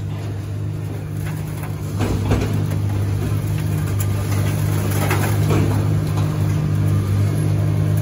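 Dump trailer's hydraulic pump running steadily as it tips up the loaded bed, with a low hum that gets louder about two seconds in.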